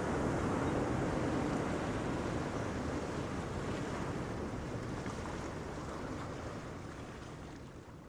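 A steady rushing noise, like surf or wind, that slowly fades away over the last few seconds.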